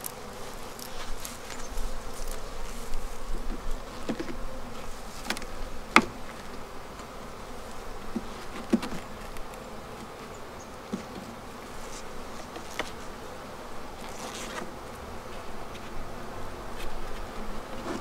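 Loud, steady buzzing of a honeybee colony in an opened hive, with a few sharp clicks and knocks as the wooden frames are pried loose with a hive tool, the sharpest about six seconds in.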